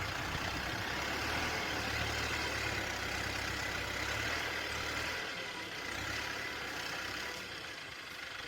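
Tractor engine running steadily at a distance, a low hum that fades somewhat about five seconds in, under an even outdoor hiss.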